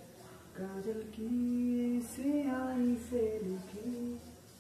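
A singing voice carrying a slow melody with long held notes that slide from one pitch to the next.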